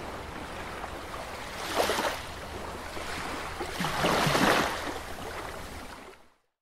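Ocean waves washing in a steady rushing surge, with two louder swells about two and four seconds in, fading out near the end.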